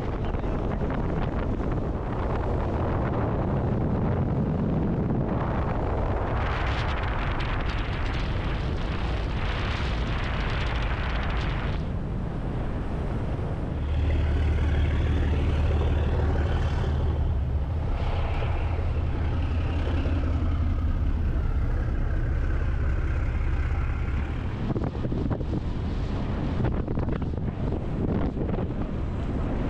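Speedboat running at speed: a steady rush of wind on the microphone with water noise. For about ten seconds in the middle, the engine's steady drone comes through strongly.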